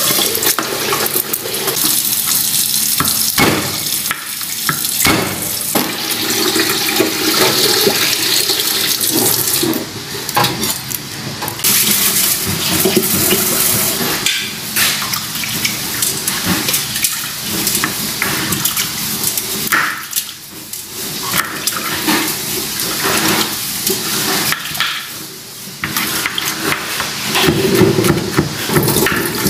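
Kitchen knife slicing garlic cloves on a bamboo cutting board, with occasional sharp taps of the blade against the wood, under a loud steady rushing noise.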